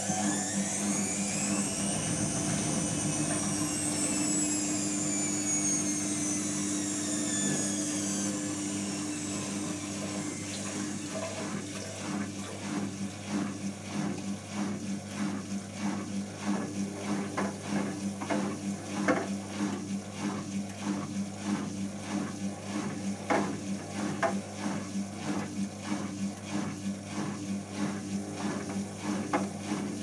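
Zanussi ZWC1300 compact washing machine spinning: the motor's high whine rises for about two seconds, then falls away over the next several seconds as the drum slows. A steady hum runs underneath, and it is followed by a fast rattle with a few sharp clicks.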